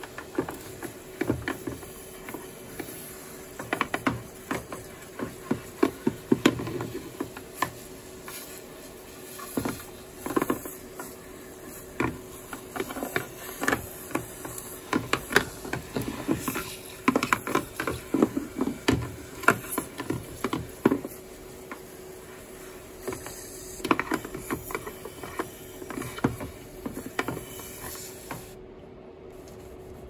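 Garden pressure sprayer rinsing the plastic detergent-drawer housing of a washing machine: water spray hissing and spattering, with many irregular sharp clicks and taps against the plastic. The spray hiss stops near the end.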